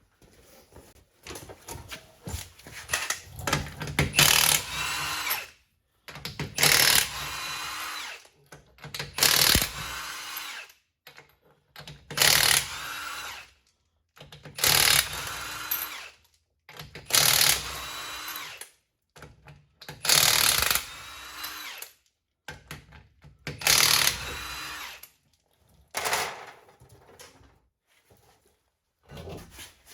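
Cordless impact gun spinning lug nuts off a Humvee wheel hub in a string of short bursts, about one every two to three seconds. The bursts are brief because the freshly replaced lug nuts come off easily.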